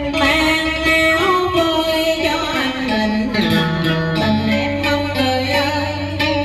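A woman singing long, wavering held notes through a microphone and PA, with a guitar accompanying. Her line steps down in pitch about halfway through, and a low steady note enters after it.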